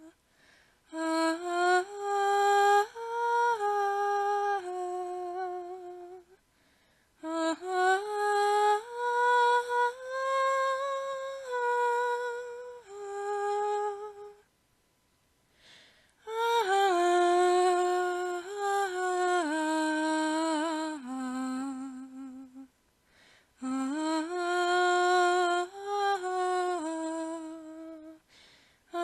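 Background music: a slow, unaccompanied melody line, phrases of several seconds broken by short silences, about four phrases in all.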